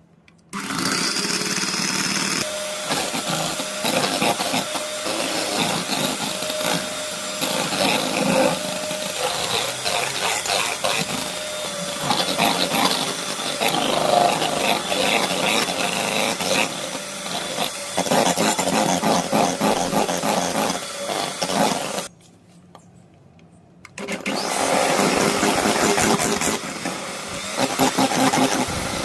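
Small electric mixer running, whipping coffee into a cream, its whisks rattling in the bowl. It stops about 22 seconds in and starts again two seconds later.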